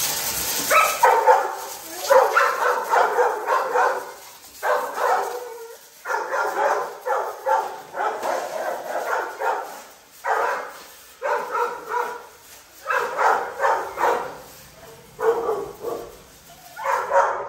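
Dog barking and yelping over and over in quick bursts, worked up by the hose spraying into its kennel run. A hose spray hisses until about a second in.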